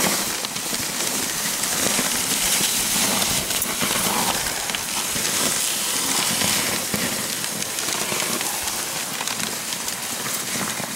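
Dog sled runners gliding over snow behind a running husky team: a steady hiss full of fine crackling.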